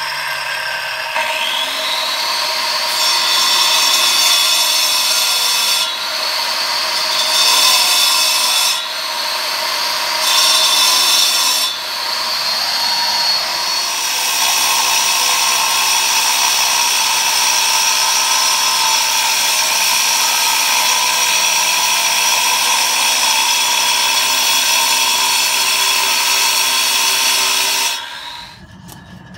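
Handheld power saw with a cutting disc cutting stone hearth slabs: the disc spins up to a high whine about a second in, its pitch and level shifting as it works through the stone, then running steadily until it stops near the end.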